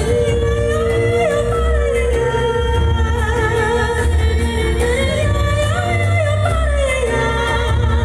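Two women singing a duet into handheld microphones over instrumental accompaniment with a pulsing bass, one voice holding a long note with vibrato while the other moves above it.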